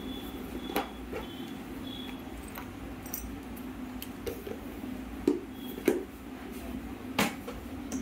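Scattered sharp clicks and knocks of small hard objects being handled, the loudest three in the second half, over a steady low hum.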